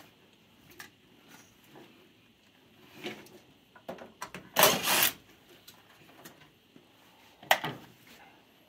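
Cordless drill running for about half a second, backing a screw out of a furnace's sheet-metal cabinet, among clicks of handling. A sharp metallic knock follows near the end.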